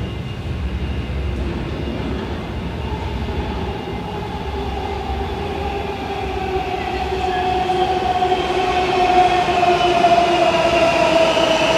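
Washington Metro subway train pulling into an underground station: a rumble of wheels on rail with the electric motors' whine, slowly falling in pitch as the train slows, growing louder over the second half.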